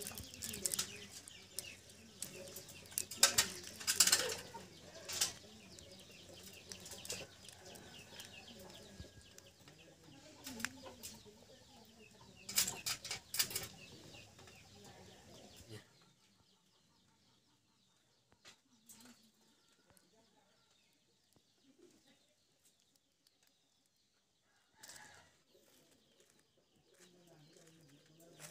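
Quail eggshell and membrane being cut open with a small blade: sharp, crackling snips, with fowl-like clucking underneath. About halfway through it drops to a faint background with only a few scattered clicks.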